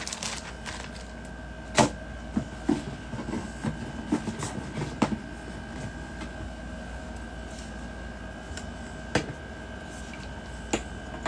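Small items being handled and rummaged out of a bag: scattered light knocks and clicks, a few sharper ones about two, five and nine seconds in, over a faint steady electrical hum.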